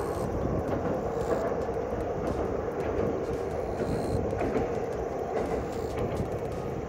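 KTR700 single-car diesel railcar crossing a steel girder railway bridge, a steady rumble.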